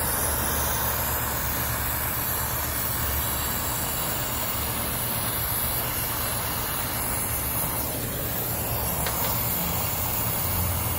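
Brazing torch flame burning steadily while copper refrigeration joints are heated: a continuous hiss with a low rumble underneath.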